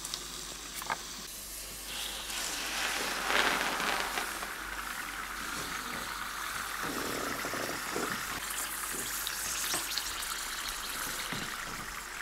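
Liquid nitrogen hissing and sputtering as it boils off on a halved watermelon: a steady hiss that swells briefly about three seconds in.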